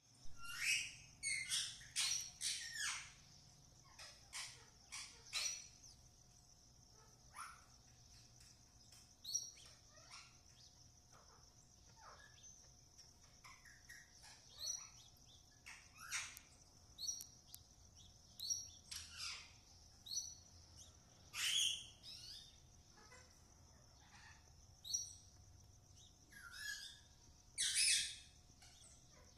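Small wild birds chirping in many short, irregular calls, with a cluster of calls near the start and loud calls near the end. A faint steady high hiss runs underneath.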